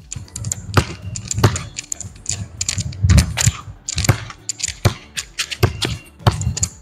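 Basketball dribbled hard on a concrete court, bouncing repeatedly about once or twice a second, with sneakers tapping and scuffing on the concrete between bounces.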